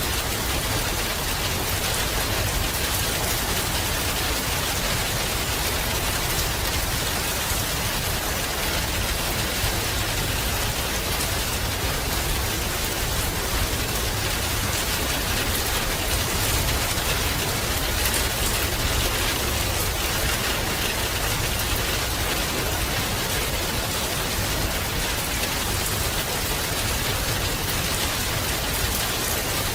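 Steady rain falling, with close drops pattering on a surface over a constant rushing noise and a low rumble beneath.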